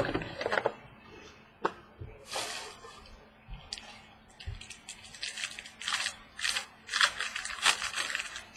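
A trading-card pack wrapper being torn open and crinkled, with the cards inside handled: a run of short, crackly rustles and tearing sounds.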